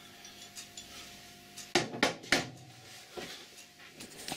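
Sharp metallic clinks and knocks of steel lathe parts and tools being handled while dismantling a Colchester lathe's cross slide: three close together about two seconds in, then a couple of fainter ones near the end.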